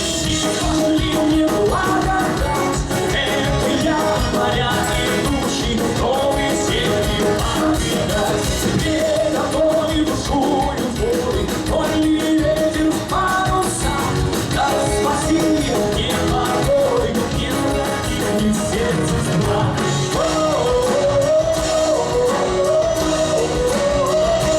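A live rock band playing, with a lead voice singing over guitars and drums.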